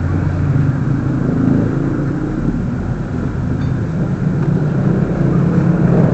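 A motor vehicle engine running close by, its low hum growing louder toward the end.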